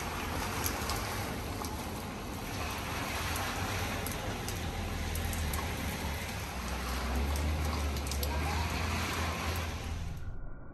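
Steady rain falling, with scattered ticks of individual drops over a low rumble. The sound cuts off suddenly near the end.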